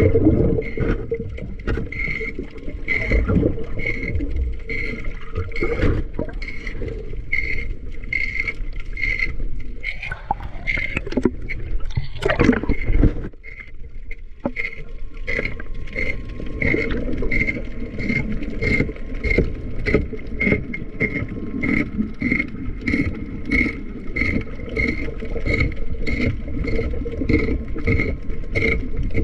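Muffled underwater sound of a diver scraping barnacles off a fishing boat's hull, with a steady rhythmic pulsing about twice a second. About halfway through there is a brief louder burst, then the sound drops for a moment before the pulsing returns.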